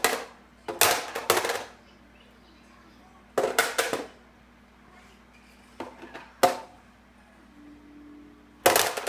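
Five short bursts of rapid, hard clattering, each under a second long, with pauses of one to two seconds between them.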